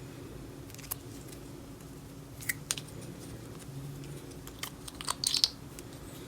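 Small plastic items being handled: scattered light clicks and taps, a little cluster of them about five seconds in, over a faint steady hum.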